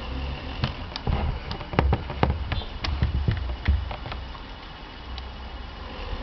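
Dell 1520 laptop making a steady hum with faint whining tones, broken by a run of irregular sharp clicks and knocks in the first four seconds. This is the unexplained noise fault its owner is showing.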